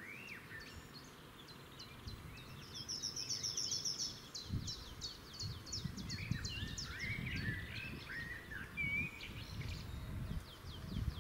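Several songbirds singing and calling, with a fast high trill about three seconds in. Low, irregular rumbling comes and goes from about halfway through.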